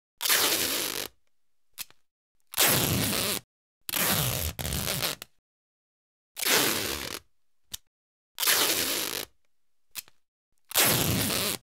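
Scotch tape being pulled off the roll in strips: about six separate pulls, each a second-long rasping rip that starts loud and fades, with short clicks between some of them.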